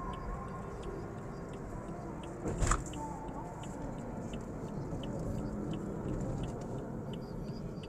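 Car driving on the highway: steady road and engine rumble, with a faint regular ticking about two to three times a second and a brief whoosh about two and a half seconds in.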